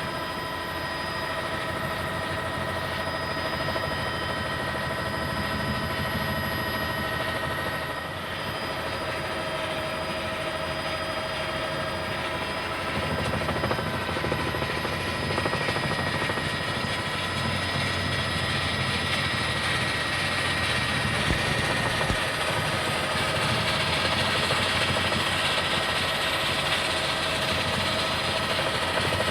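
News helicopter running in flight: steady engine and rotor noise with a constant high whine, heard from aboard the helicopter.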